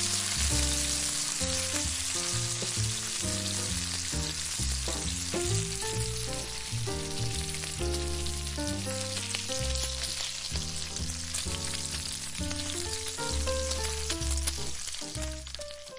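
Bacon sizzling and spitting in a frying pan, a steady crackling hiss, with background music of low notes changing about every half second underneath. Both fade out at the very end.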